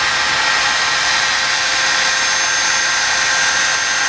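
A power tool running steadily in the workshop: a constant high hiss with a few steady whining tones, and a higher whine joining about halfway through.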